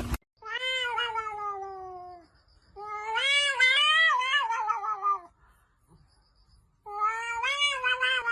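A cat yowling in three long, drawn-out calls. The first falls in pitch, the second wavers up and down, and the third starts near the end.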